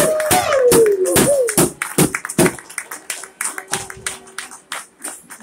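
Crowd clapping in the stands of an ice rink after a player of the match is announced, over the tail of arena PA music. A held tone from the music slides down and stops in the first second and a half, and the clapping grows fainter toward the end.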